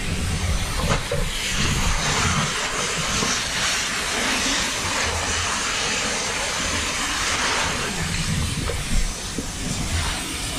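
High-pressure fire nozzle spraying a water jet with a steady hiss, the spray striking burning rubbish amid thick smoke, with a low uneven rumble underneath.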